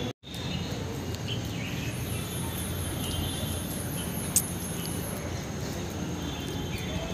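Steady outdoor background noise, with a faint, high, rapidly repeating chirping for a couple of seconds in the middle and a single short click a little after it.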